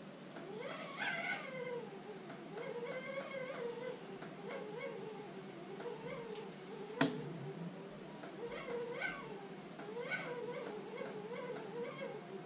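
Drawn-out, voice-like sounds that waver and swoop up and down in pitch, with one sharp click about seven seconds in.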